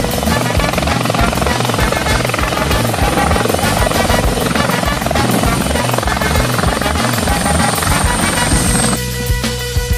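Helicopter coming in to land: loud rotor noise with fast rhythmic blade chop and a high steady whine. About nine seconds in it cuts off suddenly to music.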